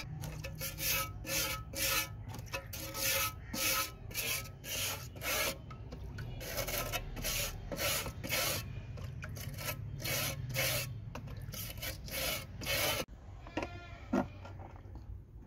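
Hand wire brush scrubbing rust off a wet steel shovel blade, in quick back-and-forth strokes about two or three a second. The scrubbing stops shortly before the end.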